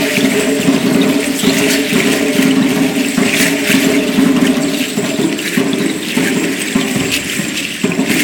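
Aztec dancers' ankle rattles (ayoyotes) shaking continuously with their dancing steps, a dense rattle with quick, uneven strokes, over a steady lower tone.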